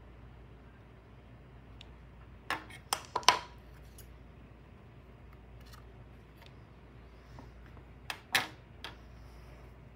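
Metal scissors snipping yarn: a quick run of four sharp snips about two and a half seconds in, then a few more clicks a little after eight seconds.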